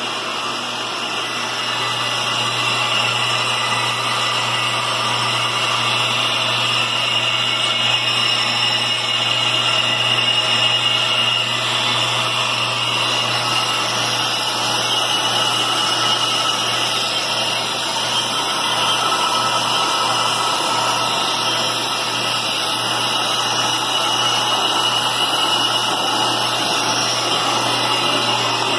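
Ammco bench brake lathe running, its twin cutting bits taking a fast resurfacing cut across both faces of a spinning brake rotor: a steady motor hum under a continuous hissing scrape of the cut, a little louder from about two seconds in.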